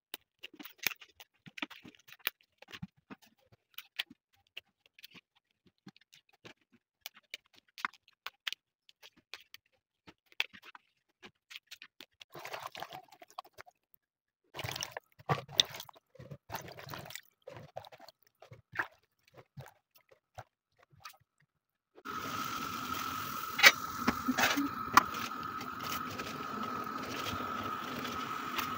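Snow pea pods being rinsed by hand in a bowl of water: scattered clicks and small splashes, busier around the middle. About 22 seconds in, a steady hiss with a constant tone starts, broken by a few sharp knocks, as the pods go into a pot of boiling water on a gas stove.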